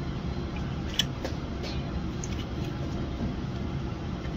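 Chef's knife working through a raw whole chicken on a wooden butcher block, giving a few short sharp clicks, the loudest about a second in. A steady low hum of kitchen ventilation runs underneath.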